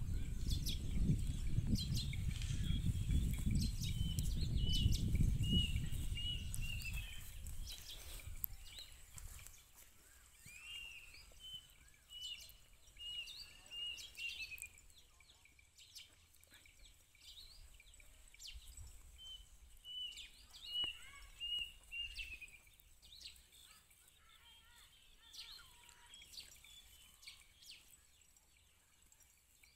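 Small birds chirping in runs of short repeated notes, over an outdoor background with scattered light clicks. A low rumble is loud for the first several seconds, then fades out about eight seconds in.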